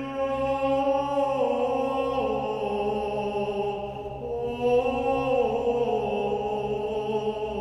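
Slow, chant-like devotional music: long held notes that step gently up and down in pitch over a steady low drone.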